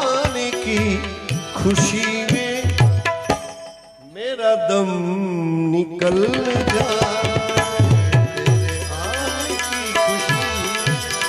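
Indian devotional music: tabla strokes under a wavering melodic line, with a brief drop in loudness about four seconds in.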